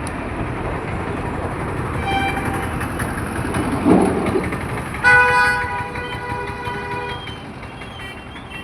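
Steady road traffic with a short vehicle horn toot about two seconds in, then a loud horn blast starting about five seconds in that holds for about two seconds and fades.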